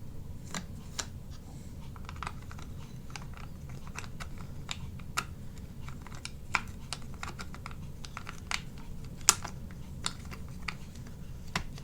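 Irregular small plastic clicks and snaps from the parts of a Mazda 3 door lock module being turned and fitted by hand, over a steady low hum. The sharpest click comes a little after nine seconds in.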